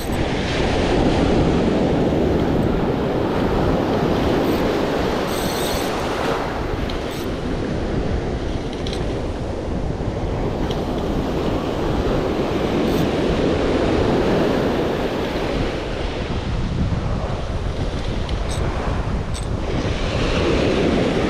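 Ocean surf breaking and washing up the beach, swelling and ebbing every few seconds, with wind buffeting the microphone and a few faint clicks.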